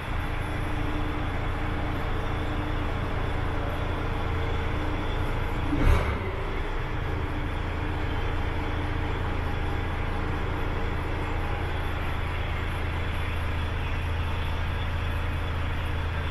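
DAF XF105's Paccar MX straight-six diesel idling steadily, heard from inside the cab, with a single short knock about six seconds in.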